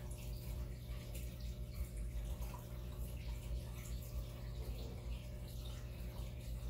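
Hang-on-back aquarium filter running: a steady low hum with water trickling and dripping.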